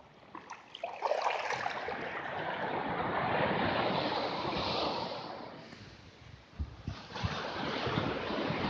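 Surf washing up the beach: a rushing hiss of the wave's wash over the sand that swells, fades, and swells again as the next wave comes in. Low thumps near the end.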